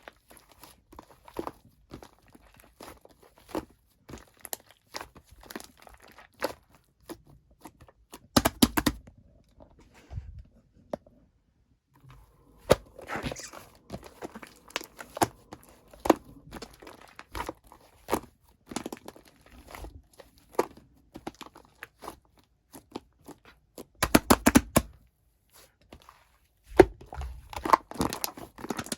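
White slime with shaving foam mixed into it being worked: sticky crackling and small popping clicks from air pockets in the foamy slime, coming in dense flurries several times with short pauses between.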